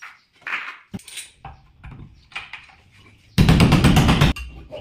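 Light metallic clinks and taps of a steel tower bolt being handled on a door, then a loud rattling burst of just under a second, about three and a half seconds in.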